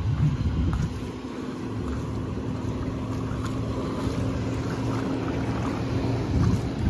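Wind rumbling on the microphone, swelling in gusts near the start and again near the end, over a faint steady low hum.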